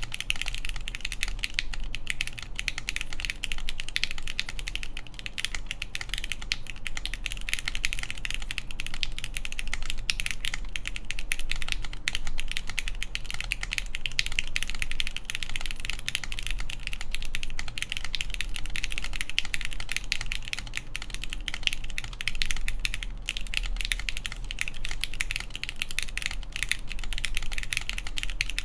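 Steady, fast typing on a Mode Tempo mechanical keyboard: lubed Gateron X linear switches with 65g springs in a full aluminium plate, under Hammer CRP R5 keycaps, a dense run of keystroke clicks with no break.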